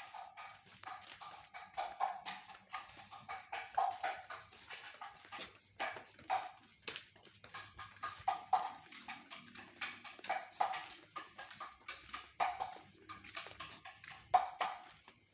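Kohkol, a wooden or bamboo slit drum, beaten in a quick, uneven rhythm of hollow knocks, each with a short ringing tone and some strokes louder than the rest.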